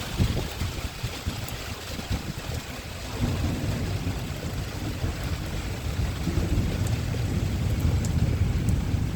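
Thunderstorm wind and rain, with a low rumble that swells about three seconds in and keeps on.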